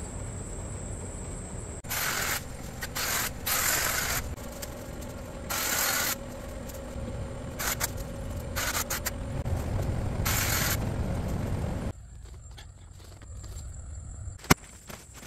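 Leafy shrub branches rustling and shaking in a series of loud bursts as the bush is pulled at and trimmed by hand. It goes quieter later on, with one sharp click near the end.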